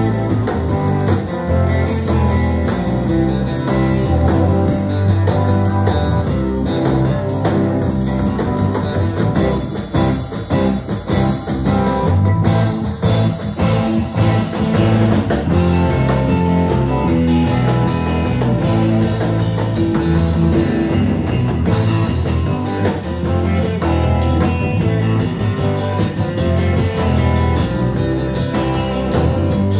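Live band playing a surf-rock instrumental: guitar lead over a walking bass line and drum kit, without vocals.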